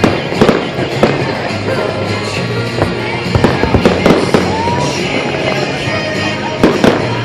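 Fireworks bursting with a string of sharp bangs, thickest in a rapid run through the middle, over music playing in the background.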